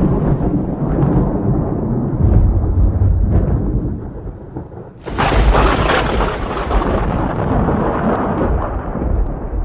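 Thunder rumbling low, then a sudden loud crack about five seconds in that rolls into a long rumble, slowly fading.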